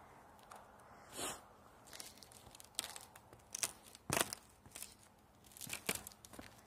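Hard, old icy snow crunching in a string of short, irregular crunches, about seven of them, the loudest about four seconds in.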